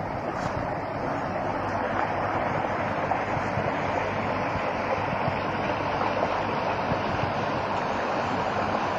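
Water rushing steadily, an even unbroken noise that builds a little over the first two seconds.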